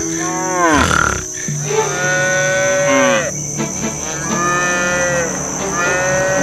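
A farm animal calling four times: long, drawn-out pitched calls of about a second each, each one sagging in pitch at its end.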